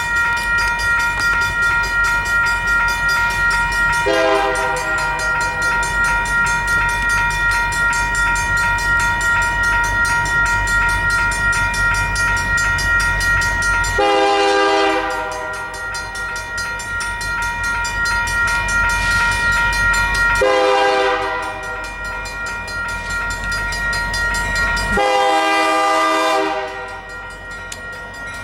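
Union Pacific diesel freight locomotive approaching with its engines rumbling and sounding its air horn: one long blast starting about four seconds in and held for about ten seconds, then three shorter blasts, the last near the end. A steady high ringing tone runs under the first part.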